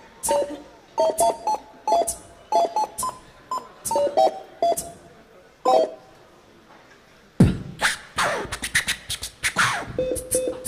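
Electronic supermarket checkout scanner beeps at several pitches, each with a click, picking out a tune. From about seven seconds in, a dense rush of rapid clicks and a sweeping hiss takes over for over two seconds. The beeping tune comes back near the end.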